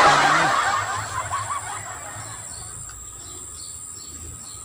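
Birds chirping over quiet rural background noise. A brief loud rush of noise at the start fades away over about two seconds.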